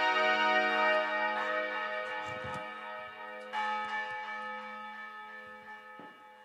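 The end of a newly made music track: bell-like sustained chords ringing out and slowly fading over a steady low drone, with a fresh chord struck about three and a half seconds in.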